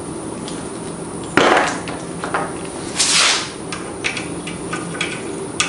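Metal clinks and clacks of sockets and a ratchet being handled while a socket is picked out and tried on a mower carburetor's float-bowl bolt, with a sharp clack about a second and a half in and a short rattling scrape around three seconds.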